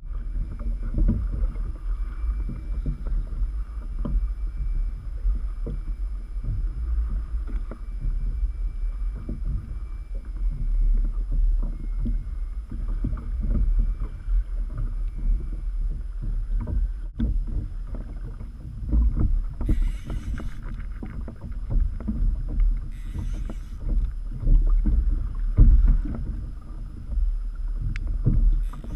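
Gusting low rumble of wind on the microphone, mixed with choppy water slapping against a plastic kayak hull. There are two short hissing bursts about two-thirds of the way through.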